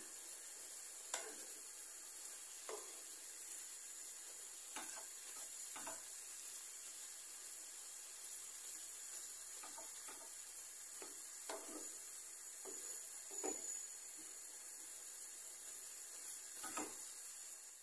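Ground beef and melting butter frying in a non-stick pan with a faint, steady sizzle, while a wooden spoon stirs it with irregular scrapes and taps against the pan. This is the mince being browned for a stuffed-meatball filling.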